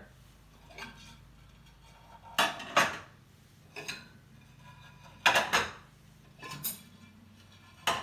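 Dinner plates clattering as they are pulled from a dishwasher's bottom rack and stacked on a countertop: a string of sharp clinks and clacks a second or two apart, the loudest about a third and two thirds of the way in.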